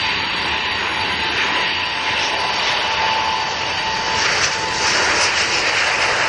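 Panavia Tornado's twin RB199 turbofan engines whining and rushing as the jet comes in to land, gear down. The sound grows louder from about four seconds in as the jet passes low over the runway.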